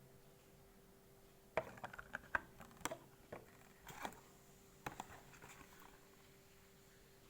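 Faint handling noise: a cluster of light clicks and taps from about a second and a half in until about six seconds in. A faint steady hum runs underneath.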